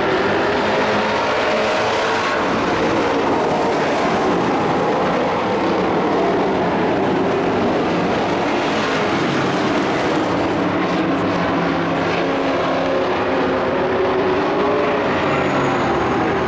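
Several dirt-track race trucks running at racing speed, their engines overlapping in a loud, steady drone whose pitches rise and fall as the trucks come through the corners.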